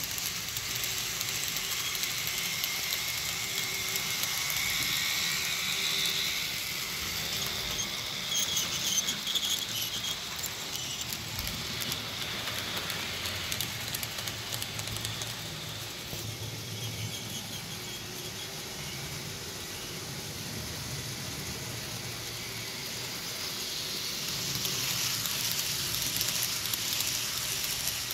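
Model diesel locomotives (a Fleischmann V100 and a Roco V90) running on the layout: a steady electric-motor whine with a high squeal and the rolling noise of wagon wheels on the track, growing louder near the end as a train of wagons rounds the curve close by.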